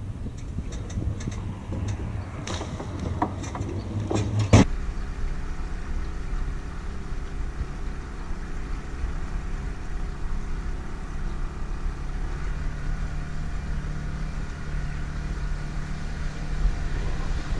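Knocks and clicks as a small aluminium boat is pushed off its trailer. From about four and a half seconds in, a small outboard motor runs steadily, pushing the aluminium boat along at a steady speed.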